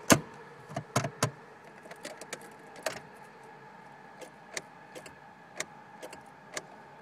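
Sharp clicks from a Honda car that fails to crank, several loud ones in the first three seconds, then fainter ones about once a second, over a steady faint whine. The engine does not turn over.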